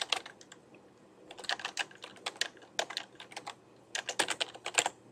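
Typing on a computer keyboard: short runs of quick keystrokes with brief pauses between them, stopping shortly before the end.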